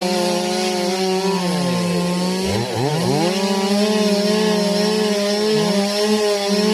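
Chainsaw engine running steadily with a constant buzzing pitch while cutting wood.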